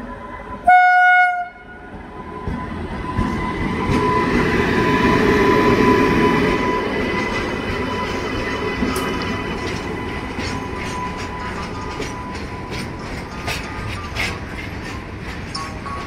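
An Indian Railways electric freight locomotive sounds its horn in one short, loud blast about a second in. The train then passes close by: a rumble that grows as the locomotive goes past, then the wagons' wheels clicking rhythmically over the rail joints.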